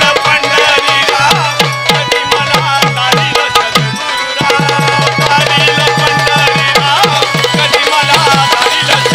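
Folk music accompaniment: a hand drum playing a fast steady rhythm of low strokes that bend down in pitch, about four a second, under a melody line. The drumming breaks off briefly about four seconds in, then picks up again.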